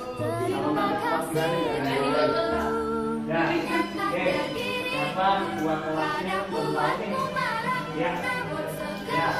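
Music with several voices singing together like a choir, sustained sung notes.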